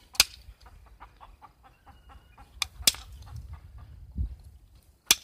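Indirect-percussion flintknapping: a striker tapping a punch set against stone, giving four sharp clicks with lighter taps in between.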